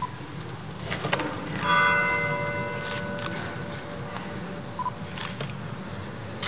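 A church bell struck once, about two seconds in, its tone ringing on and fading over several seconds: a slow toll for the dead. Under it there is a low crowd murmur, with a few sharp clicks and short beeps.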